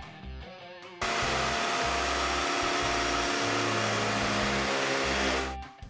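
Loud steady rushing, hissing machine noise from shop equipment, starting abruptly about a second in and stopping shortly before the end, with background music underneath.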